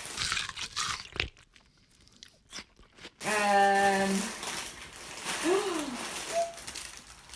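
Plastic snack wrappers crinkling and rustling as a hand rummages through a box of packets, with a few clicks. Partway through, a voice gives a held hum and later a short rising-and-falling vocal sound.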